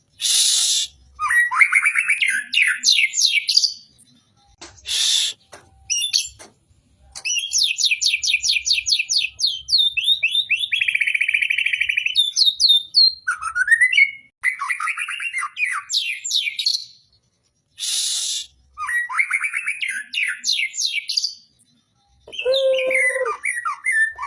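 White-rumped shama (murai batu) singing at length in a rich, varied song full of fast trills, rapidly repeated notes and sliding whistles, with short harsh hissing bursts between phrases.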